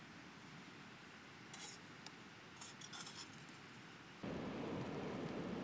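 Light metallic clinks of a metal cook pot being handled at a small camping stove: a few quick clicks about one and a half seconds in and a short cluster around three seconds. Near the end a steady rushing noise cuts in abruptly and is louder than the clinks.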